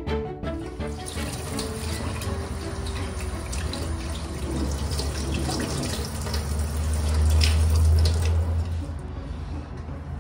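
Tap water running into a stainless steel sink and splashing over a fish being rinsed by gloved hands, over background music; the water sound thins out near the end.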